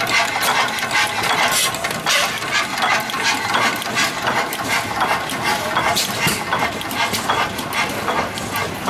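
Antique stationary gas engines running, their mechanisms clicking about twice a second.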